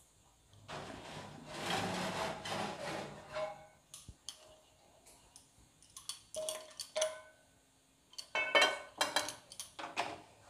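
Metal cookware being handled on a glass-top gas stove: a stretch of scraping and rustling early on, then scattered ringing clinks, and near the end a run of loud clatters as a nonstick frying pan is set down on the burner's pan support.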